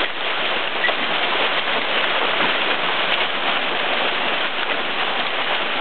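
Heavy rain mixed with hail pelting down steadily: a dense, even hiss speckled with countless small ticks of drops and hailstones striking grass, pavement and nearby surfaces.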